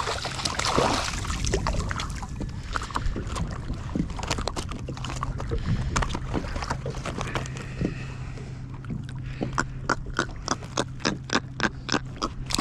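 A hooked jack splashes at the surface beside a kayak, then a string of sharp taps and clicks follows as the fish is brought aboard and handled. The taps become regular, about four a second, near the end, over a low steady hum.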